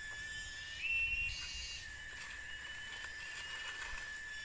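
Tropical forest insects calling in steady, high-pitched whistling tones, several at different pitches. Some switch on and off, over a continuous high hiss.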